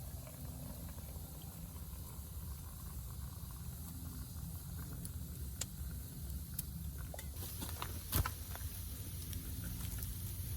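Steady low rumble of wind on the microphone, with a few scattered sharp clicks or crackles; the loudest click comes about eight seconds in.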